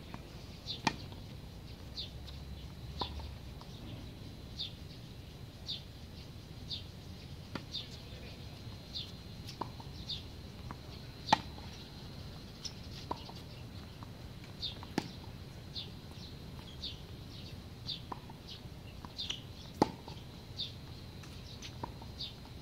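Tennis balls struck by rackets in a rally, sharp pops every couple of seconds, the loudest about halfway through and again near the end. A bird calls in short high chirps, repeating throughout.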